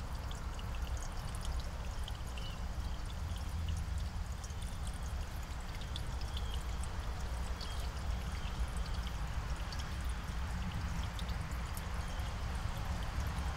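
Steady outdoor background noise through a security camera's microphone: a low rumble and an even hiss, with faint short high chirps scattered throughout.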